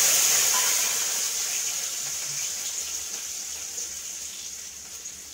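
Garlic and dried red chillies tipped into hot oil in a kadai for a dal tempering (phoron), the oil sizzling loudly and slowly dying down.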